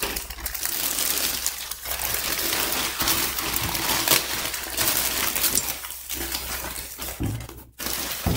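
Plastic courier bag crinkling and rustling as it is cut open with scissors and the wrapped box is pulled out of it, a dense run of crackles and small clicks.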